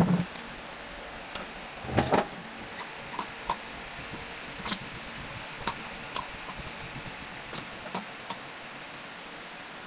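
Light knocks and clicks from a driveshaft clamped in a bench vise being handled, with gloved hands working a rubber boot over its end, over a steady hiss. The loudest knock comes about two seconds in, followed by scattered small ticks.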